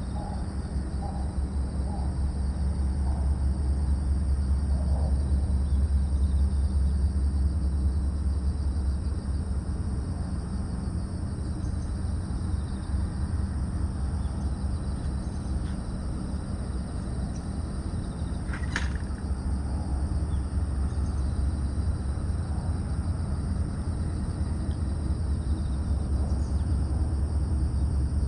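Outdoor ambience: a steady low rumble under a steady high-pitched insect drone, with a few faint chirps and one brief sharp call about nineteen seconds in.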